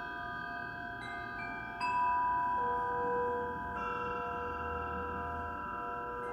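Metal chimes struck one after another in a sound bath, each clear tone ringing on and overlapping the last. New strikes come in about a second in, just before two seconds (the loudest), and again around four seconds.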